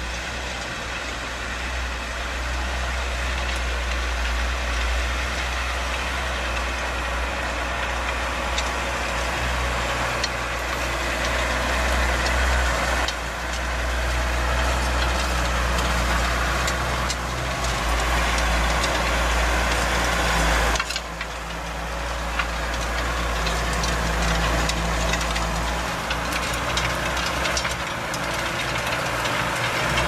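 Farm tractor's diesel engine running steadily under load as it pulls a disc harrow through the field, with the rattle and scrape of the implement in the soil mixed in. There is a short drop in the sound about two-thirds of the way through.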